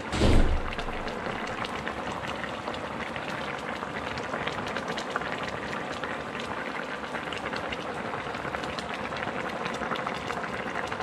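Fish broth with fresh kalamyas (bilimbi) simmering hard in a pan: a steady bubbling crackle. A short low thump comes just after the start.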